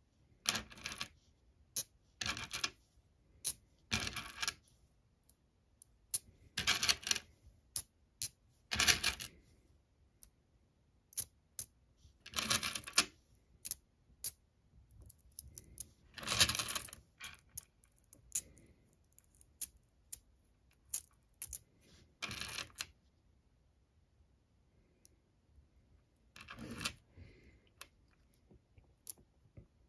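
Small magnetic ferrite pebbles clicking and clacking against each other as they are handled, picked up in clusters and snapped together. Short rattling bursts of clicks come at irregular intervals, with single clicks between.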